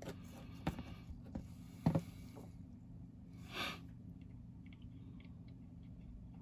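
Small hard clicks and taps of plastic model-kit parts being handled and fitted on a workbench, with a double tap near two seconds in as the loudest. A short rustle comes about halfway through, over a steady low hum.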